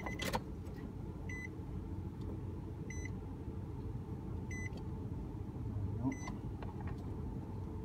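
A pickup's dashboard warning chime beeps four times, evenly about a second and a half apart, over a steady low rumble. The key is in the ignition and the driver's door is open.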